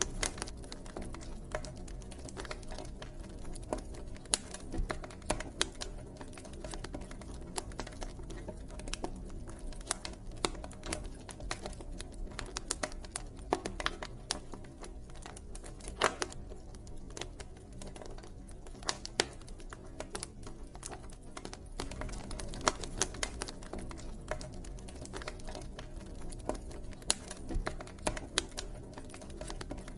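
Wood fire burning, with a steady low rush of flames under dense, irregular crackles and sharp pops.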